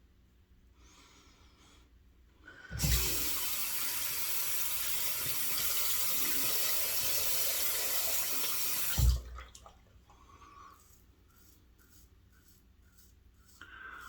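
Sink tap turned on with a knock, water running steadily for about six seconds, then shut off with another knock.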